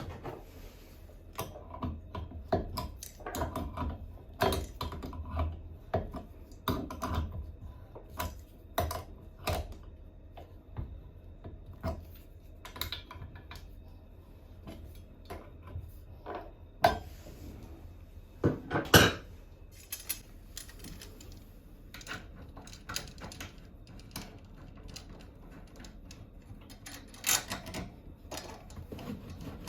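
Irregular clicks, taps and metallic clinks of hand tools and faucet fittings being handled during a bathroom faucet replacement, with a louder knock about 19 seconds in.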